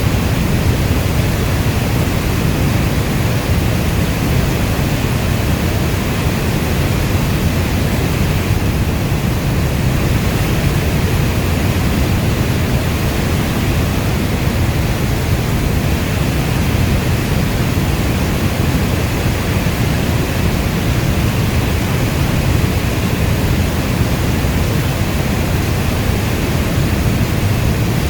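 Heavy rainfall, a steady even hiss with a deep low rumble beneath it; no separate drops or thunder stand out.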